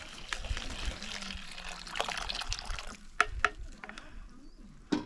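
Water pouring with a rushing splash for about three seconds, then two sharp knocks.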